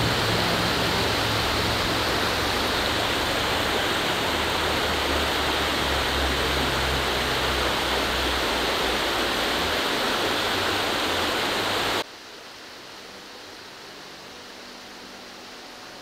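Shallow creek water rushing steadily over a rocky streambed. About twelve seconds in it cuts abruptly to a much fainter rush of water.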